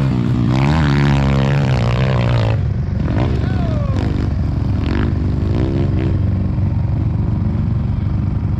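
Small single-cylinder four-stroke pit bike engine revving up and down, then running steadier from about two and a half seconds in, with a few clanks and rattles.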